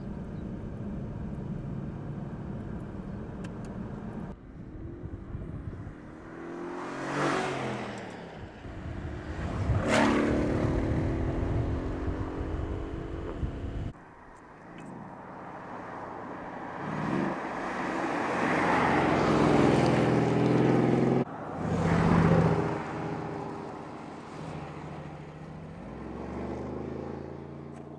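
Mercedes-Benz CLS63 AMG Shooting Brake's twin-turbo V8 accelerating hard and revving up through the gears, with fast pass-bys that swell and fall away about seven, ten and twenty-two seconds in.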